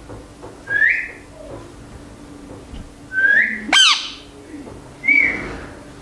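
Indian ringneck parakeet whistling: three short rising notes about two seconds apart, and just before four seconds in a fast upward-sweeping whistle, the loudest of them.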